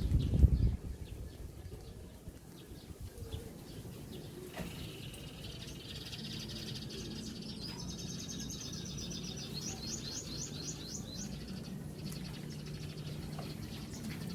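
Birds chirping, with a long run of quick high chirps that climb in pitch in the middle. A few low knocks in the first second, and a faint steady low hum from about six seconds in.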